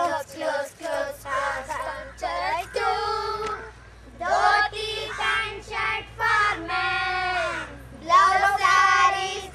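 Children singing a song together, in short phrases with long held notes.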